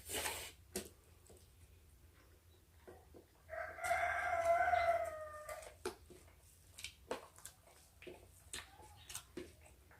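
A rooster crowing once, a single drawn-out call of about two seconds starting about three and a half seconds in.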